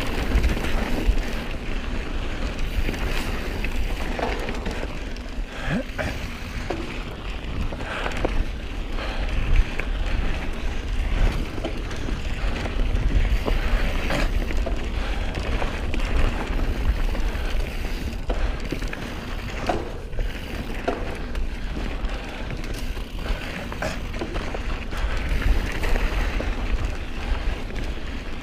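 Specialized Stumpjumper mountain bike riding fast down a dirt trail: wind rumbling over the camera microphone, tyres rolling over dirt and leaf litter, and scattered knocks and rattles from the bike over bumps.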